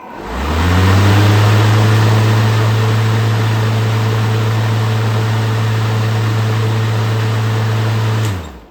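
Craftsman V60 60-volt cordless electric lawnmower's motor and blade spinning up, running steadily with a hum and a rush of air for about eight seconds, then winding down and stopping near the end. This is a test run with a new plastic cooling fan fitted in place of a worn one that had been rubbing.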